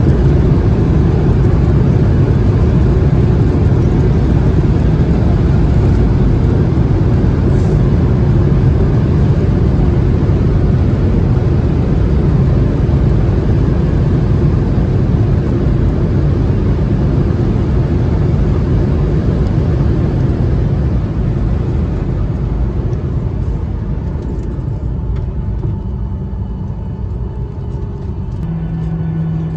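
Cabin noise of a Boeing 737-800 on its landing rollout: a loud, steady rumble of its CFM56 jet engines and wheels on the runway as the jet decelerates, slowly dying down over the last several seconds as it slows.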